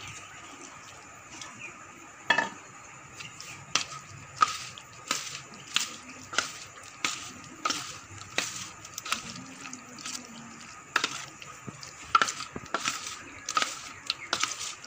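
A spoon stirring a thick, wet mix of yogurt, soaked pakoras, onion and tomato in a bowl. It clicks against the side of the bowl about every two-thirds of a second, starting a couple of seconds in.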